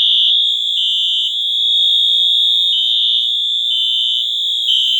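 Two fire alarm horns, a Wheelock MT and an NS, sounding together loudly: a steady high electronic tone with a second, slightly lower tone pulsing on and off about once a second. These are the only two alarms of the set sounding; the others stayed silent after a wiring failure.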